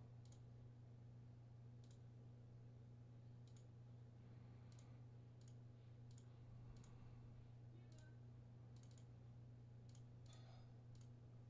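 Faint computer mouse clicks, about a dozen at uneven intervals, over a low steady hum.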